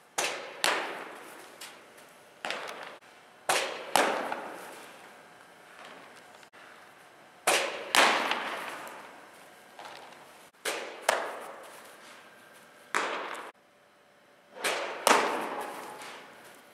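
Baseballs popping into a catcher's mitt during a receiving and throwing drill: sharp impacts, mostly in pairs about half a second apart, every two to four seconds, echoing in a large indoor hall.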